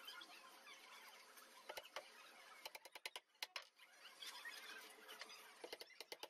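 Light hammer taps on a wooden frame, driving in small nails: a quick run of about five taps around the middle, a single tap just after, then a few more near the end.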